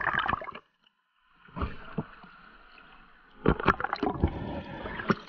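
Underwater sound through the camera housing as a speared grouper is handled on the spear shaft: sharp knocks and clicks over a muffled rush of water. There is a short burst at the start and about a second of silence, and the knocks come thickest near the end.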